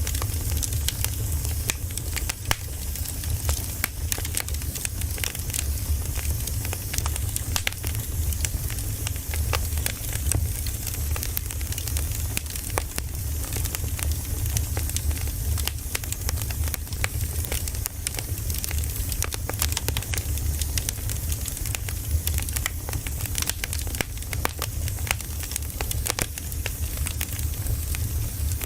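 Campfire burning: wood crackling in quick, irregular snaps and pops over a steady low rumble of the flames.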